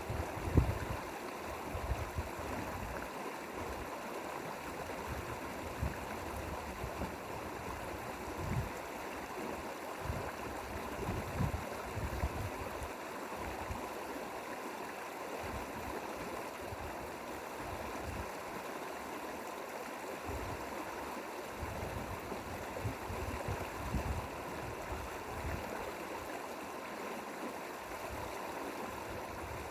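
Water of a mountain valley stream flowing steadily, with irregular low rumbles underneath.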